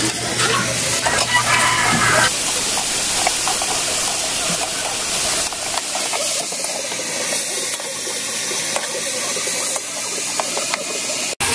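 Shrimp paste (bagoong alamang) sizzling in hot oil in a pan as it is stirred with a spatula: a steady hiss with light crackling. The sound cuts out for an instant near the end.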